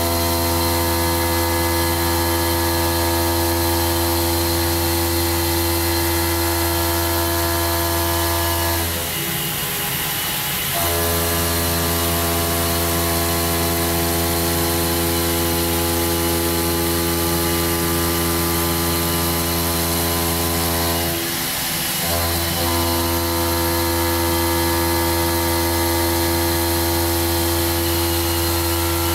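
CNC stone-milling spindle cutting into a marble block under water coolant: a steady humming drone with a hissing cut. The sound drops and wavers briefly about nine seconds in and again about twenty-one seconds in.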